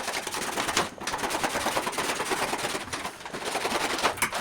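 Scissors cutting through paper wrapped around a cardboard box: a rapid, crackling run of snips, broken briefly about a second in.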